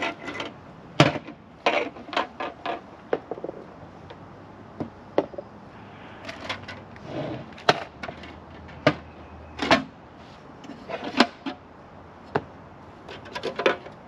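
White plastic pool return-jet parts being unpacked and handled, with irregular clicks, taps and knocks as pieces are picked up, turned over and set down.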